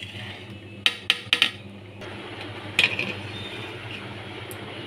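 Metal ladle knocking and scraping against an aluminium pot while stirring thick khichuri, with a few sharp clinks about a second in and again near three seconds, over a low steady hum.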